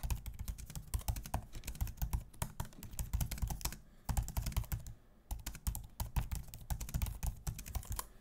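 Typing on the scissor-switch keyboard of a 15-inch M2 MacBook Air (2023): a quick, uneven patter of key clicks, with two brief pauses around the fourth and fifth second.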